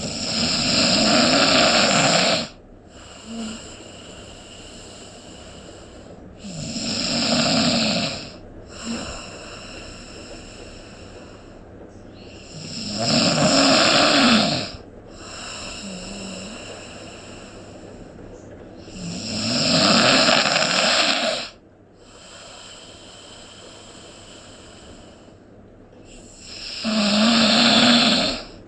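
Snoring: five loud snores, about one every six and a half seconds, each lasting around two seconds, with a quieter breathy sound between them.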